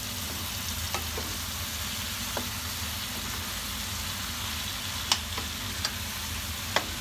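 Vegetables and chicken sizzling in a hot frying pan while being stir-fried with a wooden spoon: a steady hiss, with a few short knocks of the spoon against the pan, the loudest about five seconds in.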